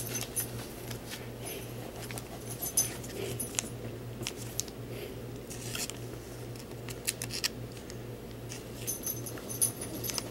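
Faint sounds of a small pet dog, mixed with light clicks and rustles of trading cards and plastic card sleeves being handled, over a steady low hum.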